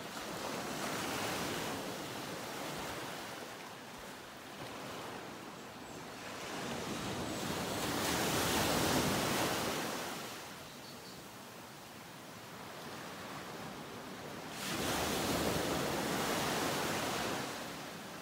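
Ocean surf washing onto a sandy beach: a steady hiss of water that rises and falls in slow swells, loudest about halfway through and again near the end.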